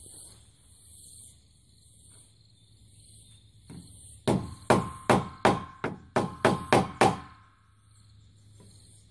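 Soft-faced mallet striking the handle of a screwdriver held in a corroded screw head on an aluminium door frame. About four seconds in come about ten quick blows in three seconds, each with a short metallic ring. The blows drive the screwdriver tip into the corroded screw top so it will grip.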